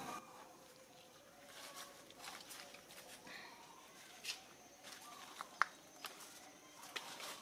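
Faint outdoor ambience with a thin, steady high tone and scattered soft clicks and ticks, the sharpest about five and a half seconds in.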